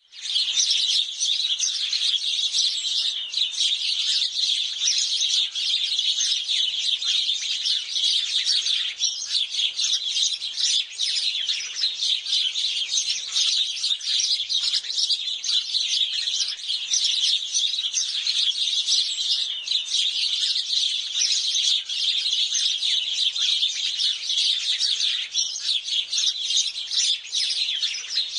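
A flock of house sparrows chirping continuously, many short chirps overlapping into a dense, unbroken chatter.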